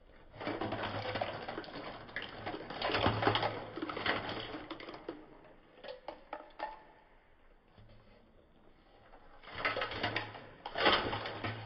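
Raw crab pieces in their shells sliding and clattering off a steel plate into a steel pan of masala, shells knocking on the metal in rattling bursts, with a few lone clicks in the middle and more clatter near the end.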